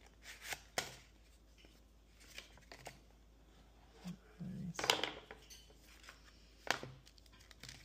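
Cardboard retail box of a Google Pixel 9 Pro being unboxed by hand: scattered light taps and clicks as the sleeve and inner tray slide out, with a brief papery rustle about five seconds in and a sharp tap near the end.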